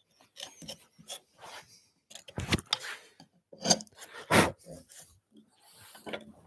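A bench chisel paring wood from the bottom of a halving joint: a series of short scraping cuts, a few louder strokes in the middle.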